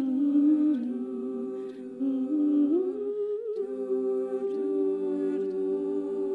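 Women's a cappella group singing sustained wordless chords in close harmony, moving to a new chord a few times, with a brief dip in the sound about three and a half seconds in.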